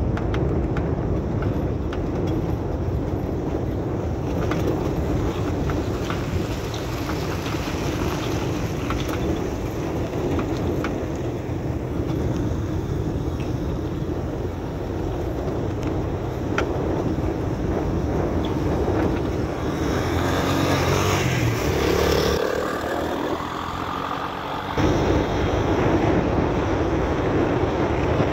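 Steady running noise of a moving vehicle on a dirt and gravel road: engine rumble with tyre and road noise. The low rumble drops away for a couple of seconds about two-thirds through, then returns.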